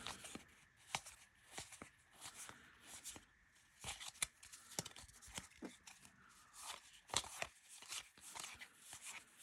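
Baseball trading cards being handled and flipped through one by one, with soft irregular clicks and rustles of card stock.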